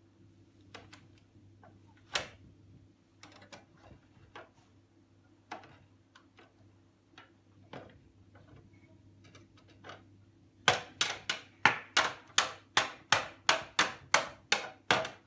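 Sharp little clicks and knocks as screws are worked into a plastic toy castle by hand. Near the end comes a run of about a dozen louder clicks, evenly spaced at about three a second.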